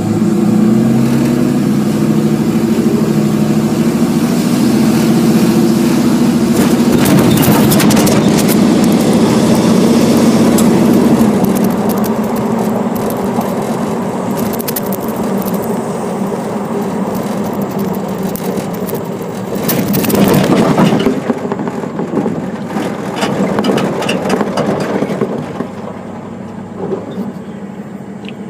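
Car engine running loudly through its exhaust, its pitch rising over the first couple of seconds and then holding, with scraping and knocking noises over it, loudest around twenty seconds in.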